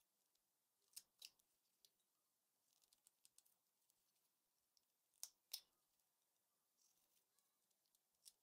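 Carving knife cutting into a small wooden figure, faint: two pairs of sharp snaps, about a second in and about five seconds in, with softer scraping strokes between them.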